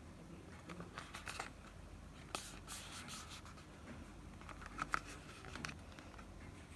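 Packaging of a Xiaomi rollerball pen being handled during unboxing: short scraping and rubbing noises with scattered light clicks, the sharpest click nearly five seconds in.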